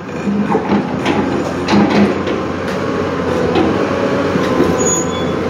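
Hyundai crawler excavator running steadily as it works its boom, with a few sharp knocks, the loudest about two seconds in.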